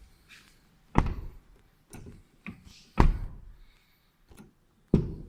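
Geely X7's stiff car door being worked open and shut: three heavy thunks about two seconds apart, with lighter latch clicks between them.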